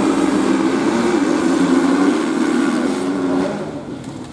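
Grasstrack motorcycle engine revving, its pitch rising and falling as the throttle is worked, then fading away about three and a half seconds in.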